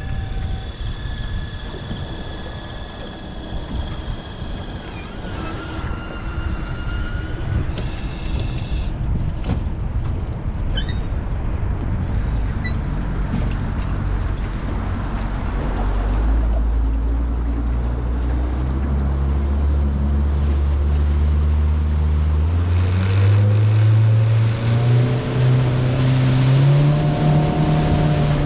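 Electric trolling motor whining over rushing water until about nine seconds in. Then the boat's outboard motor runs and speeds up over the last dozen seconds, its pitch climbing in steps and getting louder, with water and wind noise along the hull.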